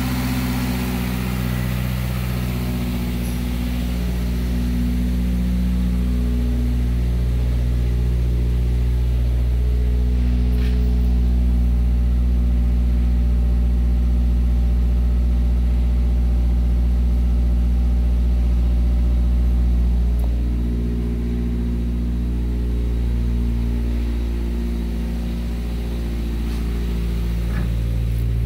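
2013 Subaru Impreza's 2.0-litre flat-four boxer engine idling steadily.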